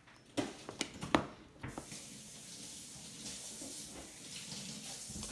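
A few knocks, then a tap running steadily, water splashing as slime is washed off hands.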